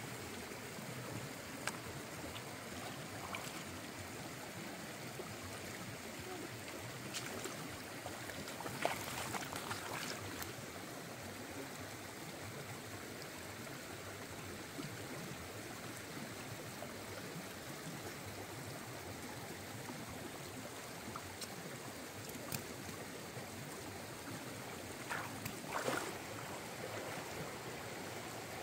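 Shallow stream running steadily over rocks. A few short splashes and knocks from hands working in the water among the stones, the loudest about nine seconds in and again near the end.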